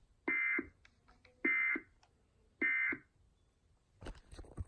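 Emergency Alert System end-of-message data bursts: three short, identical digital screeches about a second apart, the EOM headers that close an alert. A crackle of clicks follows near the end.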